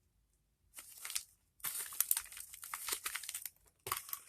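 Plastic snack bag crinkling as it is handled, in three bursts of rustling, the middle one the longest.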